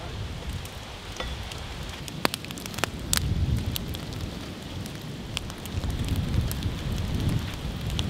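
Open wood fires crackling, with scattered sharp pops, over a low, uneven rumble.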